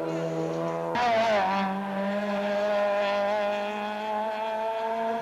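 Racing car engine at high revs. The pitch jumps up sharply about a second in, then holds nearly steady as the car is driven hard uphill.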